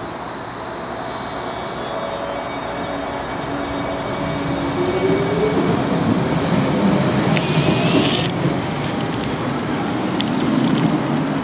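Baltimore Metro Subway train pulling out of the station: its motors give a rising whine as it picks up speed, over the rumble of wheels on rail, growing louder as the cars pass.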